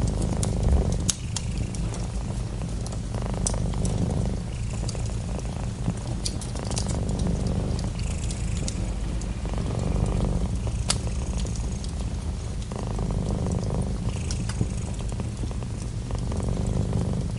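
Domestic cat purring steadily, the purr swelling and easing every few seconds with each breath, with scattered sharp crackles and pops from a wood fire in a fireplace.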